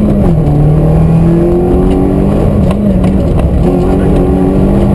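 Peugeot 16-valve rally car's engine running hard, heard from inside the car. The engine note drops shortly after the start, then climbs again as the car accelerates.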